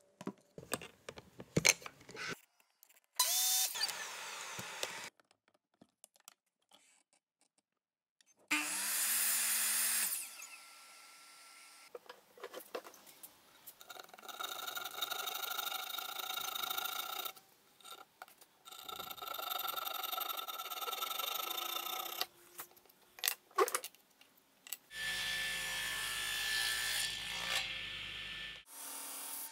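Woodworking tools cutting scrap wood in a series of short clips: a few knocks, bursts of power-tool noise, steady stretches of a machine running with sawing among them, and a table saw running near the end.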